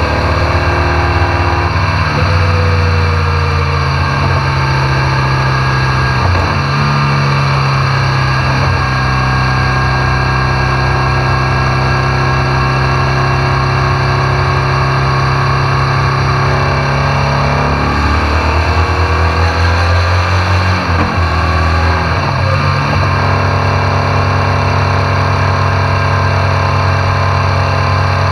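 BMW R1200 GSA's flat-twin boxer engine running under way at road speed, heard close up at the bike with road and wind noise. The engine note dips and rises a few times, about a quarter of the way in and again past the middle.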